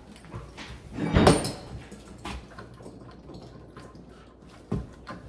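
Clicks and knocks of door lock hardware being handled and worked on the door as the lock's screws are taken out, with a loud knock about a second in and another near the end.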